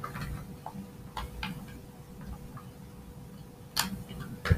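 Small plastic toy pieces being handled: scattered light clicks and taps, with two sharper clicks near the end.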